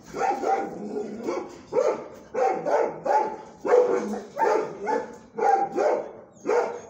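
Dog barking over and over, about a dozen barks at roughly two a second.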